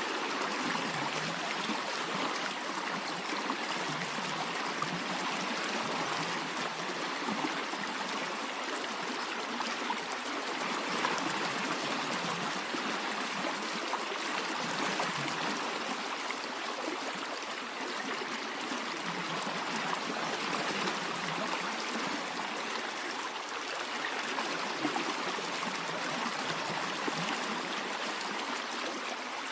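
A stream of water running steadily, an even unbroken rush of flowing water.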